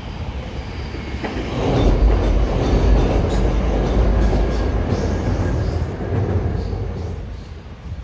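Matangi electric multiple unit passing by, its wheels rumbling and clattering over the rails. The sound swells about a second and a half in and fades away near the end.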